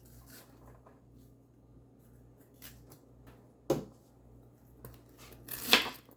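A knife cutting through crisp bok choy stalks and leaves: a sharp crunch about three and a half seconds in and a longer crisp crunch near the end, with faint handling rustles between.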